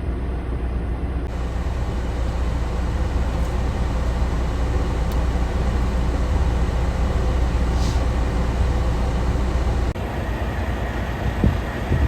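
Strong wind from a winter snowstorm buffeting a parked semi truck, a steady deep rumble with rushing noise over it, and a couple of low thumps near the end.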